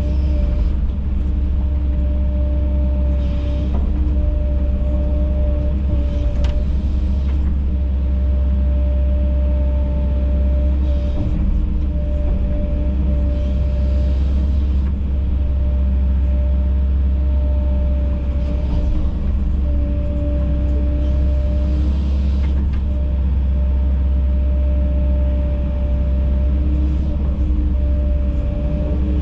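Kobelco SK210 excavator's diesel engine running steadily under working load, with a constant hum and brief hissing now and then.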